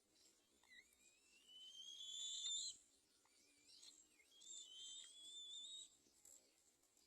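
Black-winged kite giving two long whistled calls, each rising in pitch over a second or two and then cutting off.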